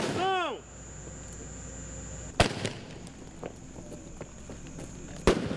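Firecrackers going off: three sharp bangs about two and a half seconds apart, the first followed by a brief rising-then-falling pitched sound.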